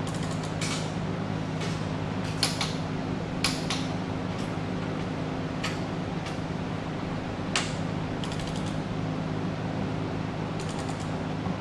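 Sharp metallic clicks, single or in close pairs a few seconds apart, from a long torque wrench being worked on the cylinder head bolts of a Cummins ISX diesel engine, over a steady low hum.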